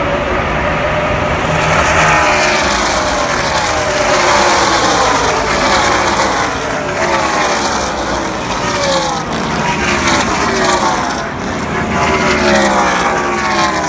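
A field of ARCA stock cars' V8 engines streaming past the grandstand one after another, each engine note falling in pitch as it goes by. The sound grows louder about two seconds in as the pack arrives.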